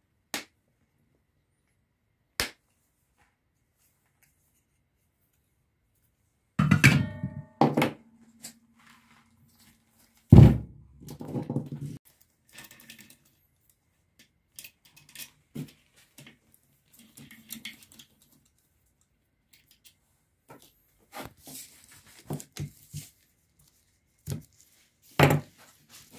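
Workshop handling noises from taking apart an old electric motor: two sharp clicks as pliers cut the start capacitor's wire leads, then scattered knocks and clinks of metal parts and tools on the bench. A short metallic ring lasts a couple of seconds, and then comes the loudest thunk, about ten seconds in, with more knocks near the end.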